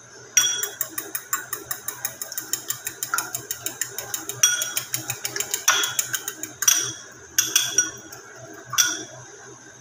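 Metal fork whisking a raw egg in a glass bowl, the tines clicking rapidly against the glass at about six clicks a second, then a few sparser, louder knocks in the second half.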